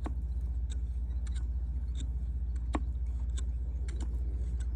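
Irregular sharp crackles and ticks of mold-stuck Digital 8 videotape stripping apart as the tape is pulled and cleaned by hand, with a couple of louder snaps. A steady low hum with a fast flutter runs underneath.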